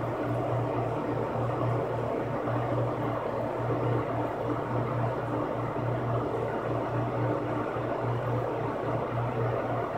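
Electric box fan running steadily: an even whir with a low motor hum that swells and fades at a regular beat.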